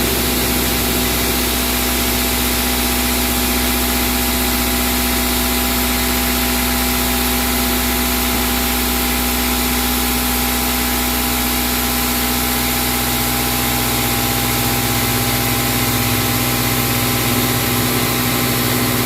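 A milling cutter taking a full cut in tool steel, 12 mm axial depth and 3.5 mm radial width at 924 rpm and 554 mm/min feed. It makes a steady, even machining drone with a constant hum and hiss.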